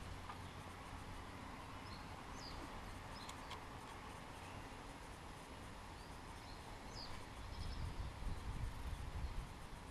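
Faint outdoor ambience with a few short, high bird chirps scattered through it, and a low rumble that grows stronger near the end.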